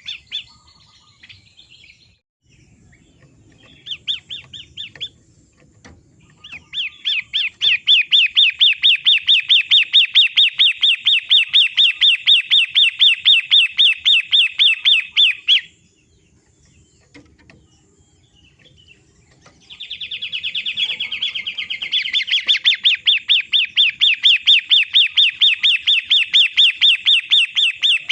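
Long-tailed shrike (pentet/cendet matahari) calling in a fast, rhythmic string of sharp, evenly spaced notes. After two short bursts it gives two long runs of about eight seconds each, with a pause of several seconds between them.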